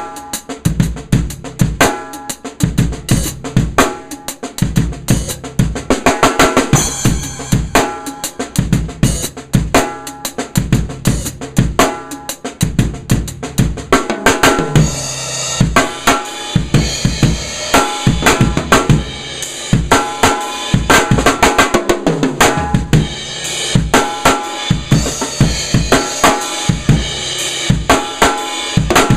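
ddrum Journeyman 13x7 snare drum, tuned about as high as it goes, with an Evans G1 batter head, snares on and no dampening, played in fast grooves and fills on a drum kit with bass drum underneath. The high-pitched snare rings on after each stroke.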